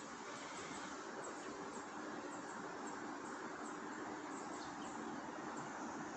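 Steady outdoor ambience: an even rushing hiss, with a few faint, short bird chirps.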